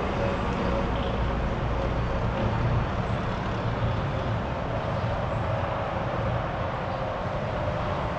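Steady distant road-traffic rumble, with a faint constant hum above it that grows slightly stronger near the end.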